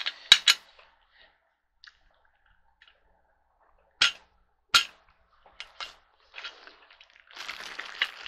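Sharp clicks and knocks of plastic caster wheels being pushed and knocked into the leg sockets of an office chair's five-star base: three quick ones at the start, two more about four and five seconds in, then fainter ones. A plastic bag crinkles near the end.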